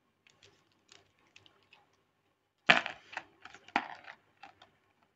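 Light clicks and taps of small hard objects being handled, a few faint ones at first, then a cluster of louder clicks about two and a half seconds in.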